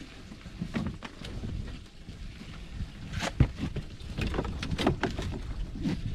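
Low rumble of wind on the microphone, with irregular light clicks and knocks scattered through it.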